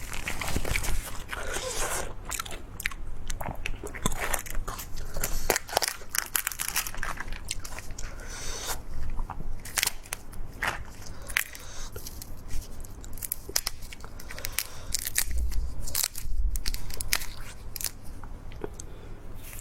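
A person biting and chewing crunchy food, with many irregular sharp crunches.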